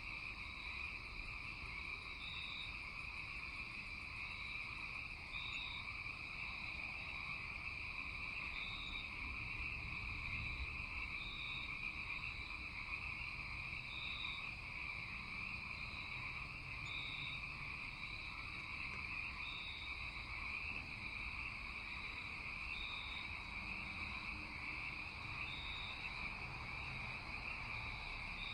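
Steady night-time chorus of calling animals, a continuous high trill, with a short higher note repeating about every three seconds over a low rumble.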